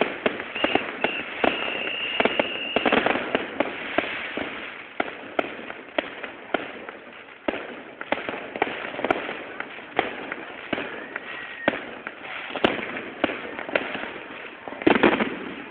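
Fireworks going off in a dense run of bangs and crackles, with a high steady whistle for about two seconds near the start and a louder cluster of bangs near the end. The recording is thin, from a low-quality phone.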